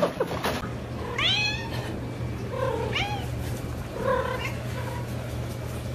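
A domestic cat meowing several times: a longer call about a second in, then shorter meows around three and four seconds in. A few sharp knocks come just before, at the very start.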